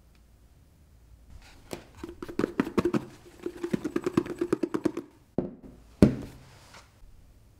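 Raw chicken pieces and flour knocking and rattling inside a lidded glass bowl as it is shaken hard to coat the chicken, for a few seconds, then two sharp knocks about half a second apart as the bowl is handled on the table.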